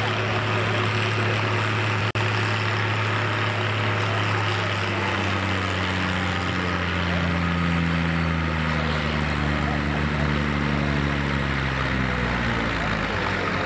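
Massey Ferguson 95X tractor's 5.8-litre six-cylinder Perkins diesel running steadily, then revving up gradually from about five seconds in and easing back down near the end.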